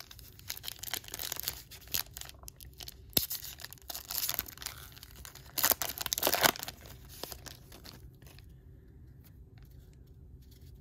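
A 2014 Bowman Draft trading-card pack wrapper being torn open and crinkled, loudest in two spells around the middle. Then a fainter rustle as the stack of cards is handled.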